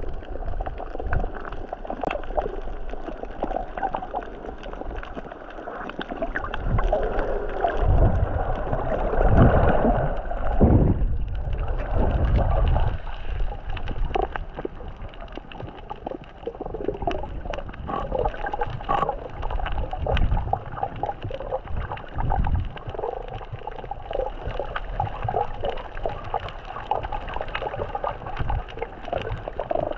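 Muffled underwater sound heard through a GoPro's waterproof housing: water gurgling and sloshing around the camera as the snorkeler swims, with many small crackles and clicks. Heavier low rumbling surges come about a third of the way in.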